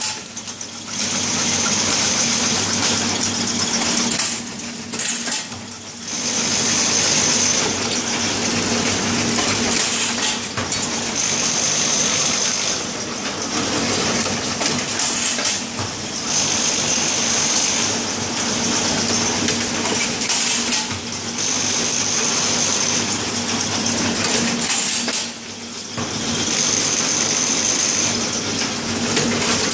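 Automatic stick-bundling and labeling machine running: a continuous clatter of sticks and metal parts over a steady hum. A high-pitched sound about a second long repeats roughly every five seconds with the machine's cycle.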